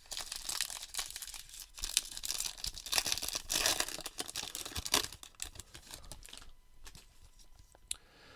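Foil baseball card pack wrapper being torn open and crinkled: a dense crackling for about five seconds, then fading to faint rustles with a single click near the end.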